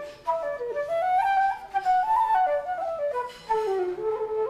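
Wooden Irish flute played solo: a quick melody, the notes stepping rapidly up and down with short ornaments.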